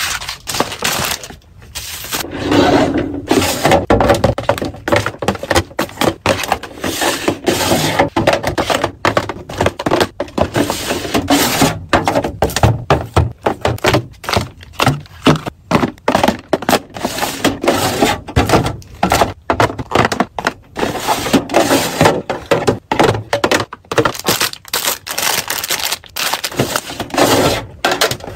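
Close-up household organizing sounds: packaging crackling and rustling, with a dense, irregular run of taps, clicks and knocks as items are handled and set down.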